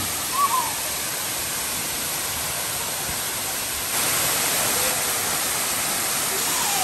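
Waterfall pouring over rock in a steady, loud rush of water that rises slightly about four seconds in. A short, faint gliding call sounds about half a second in.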